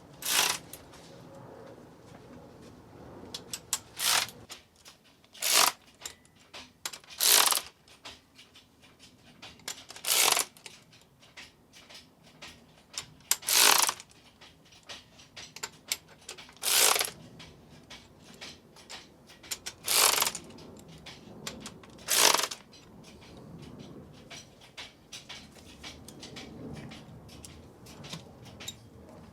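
Socket ratchet clicking in short bursts, about ten of them a few seconds apart, as the cylinder head bolts are run down snug before torquing.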